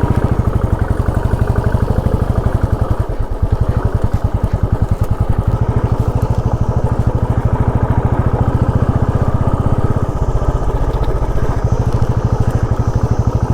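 Motorcycle engine running steadily with an even pulsing beat, its note changing slightly about ten seconds in.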